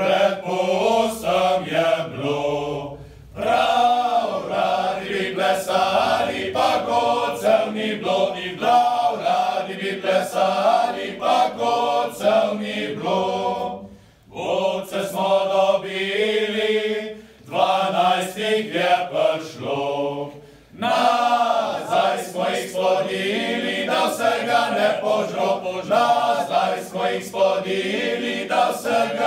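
Small male vocal group singing a cappella in harmony, in long phrases with short breaks between them.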